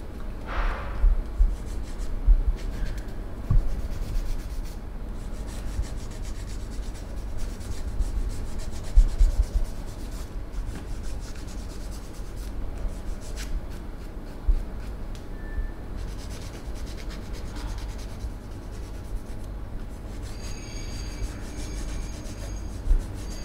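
Hands rubbing over skin during a massage: steady rubbing with irregular low thumps.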